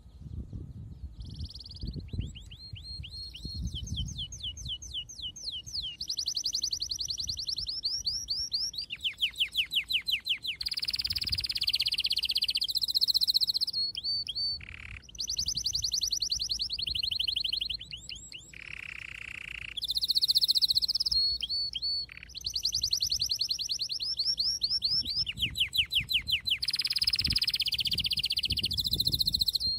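Bird song: long runs of rapid, high chirps and trills, the pattern changing every second or two.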